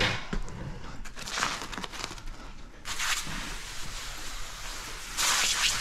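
Hand sprayer misting liquid onto a car bumper and paint protection film: a few short hisses, then a longer spray from about three seconds in and another strong burst near the end.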